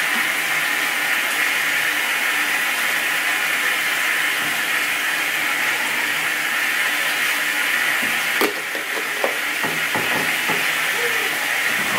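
Water rushing steadily into a top-loading washing machine as it fills for a wash load, a constant even hiss. A few light knocks come about eight seconds in as the plastic detergent bottle is handled.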